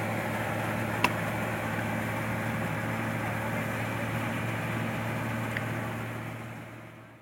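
Combine harvester engine running steadily with a low hum, one sharp click about a second in, then fading out near the end.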